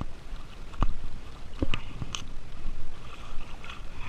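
Close rustling and handling noise, with a few sharp clicks and knocks about a second in and again around two seconds in.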